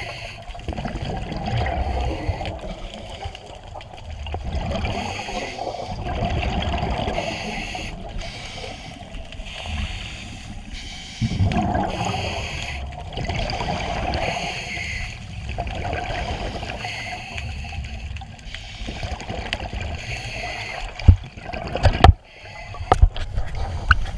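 Scuba diver breathing through a regulator underwater: a hissing inhale alternating with gurgling exhaled bubbles every few seconds. A few sharp knocks near the end.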